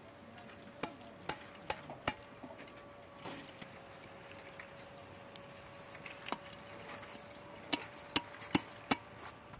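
Drained rice poured from a metal colander into a large aluminium cooking pot, with the colander knocking sharply on the pot's rim several times to shake it empty: a few knocks in the first two seconds and a quick run of about five more near the end.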